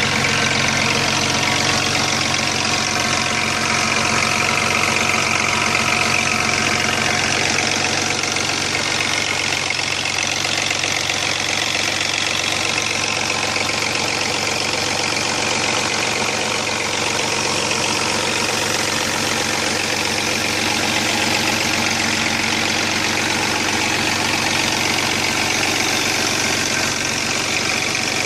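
Chrysler Sebring engine running steadily with a fast metallic rattle from the timing chain. The hydraulic chain tensioner is not getting enough oil pressure from a weak oil pump, so the slack chain rattles against its housing, an early sign of tensioner failure.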